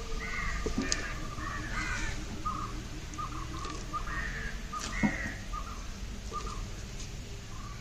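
Birds calling over and over in short harsh calls, with a few soft knocks as watermelon pieces are pushed into a plastic juicer jar.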